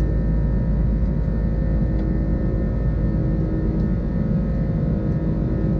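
Airbus A330-200 cabin noise in flight, heard inside the cabin: a steady low rumble of engines and airflow, with a few steady engine tones humming above it.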